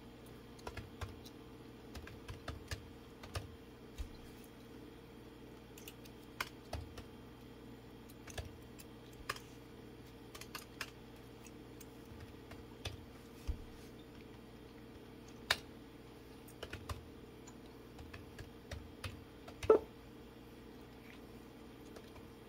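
Computer keyboard keys and mouse clicks, scattered and irregular with pauses between them, one louder click about 20 seconds in, over a low steady hum.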